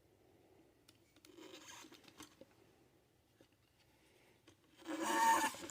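Plastic wind-up monkey figure being turned on its plastic base: faint scraping, then a loud squeak just before the end as plastic rubs on plastic.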